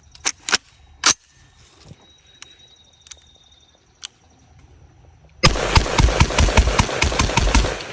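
A few sharp metallic clicks of the rifle being handled, then, about five and a half seconds in, a DSA FAL battle rifle in .308 fired as fast as the trigger can be pulled: a rapid string of about a dozen loud shots, five or six a second, ending with the blasts echoing away.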